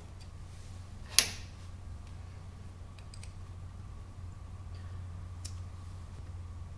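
Metal click about a second in, then a few light ticks, as an Allen key is fitted into and turns the socket-head clamp screw of a table stop block on an Aciera F1 milling machine.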